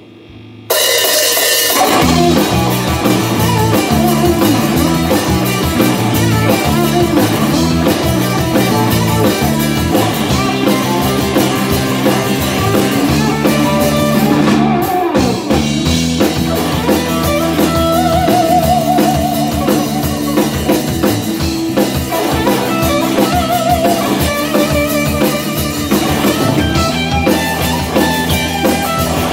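Instrumental blues-rock played live by a band of two electric guitars, electric bass and drum kit, kicking in suddenly under a second in.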